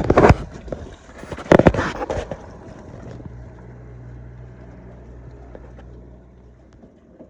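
Two loud rushes of noise in the first two seconds, then a boat engine idling with a steady low hum that fades slightly near the end.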